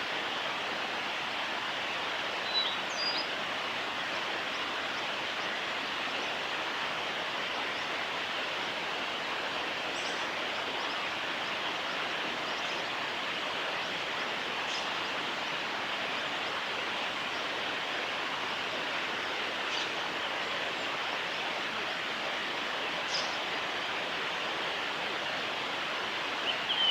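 Steady rushing of running water, with a few brief high bird notes about two and a half seconds in and a short burst of birdsong at the very end.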